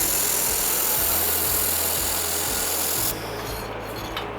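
Handheld laser welding machine welding a seam: a steady loud hiss that cuts off suddenly about three seconds in, when the weld stops.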